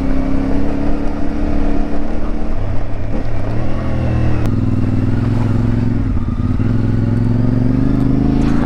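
CFMoto 450MT's 449 cc parallel-twin engine running while the bike is ridden off-road. The revs drop a little over two and a half seconds in, then climb slowly toward the end. There is a single sharp knock about four and a half seconds in.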